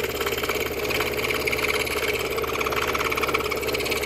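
Scroll saw running steadily, its very fine blade cutting through 1/4-inch birch 5-ply plywood.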